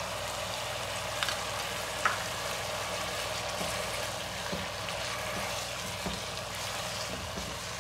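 Chicken pieces sizzling steadily in a pan of hot oil and the water they have released, with a few soft taps and scrapes as a silicone spatula stirs in the spices.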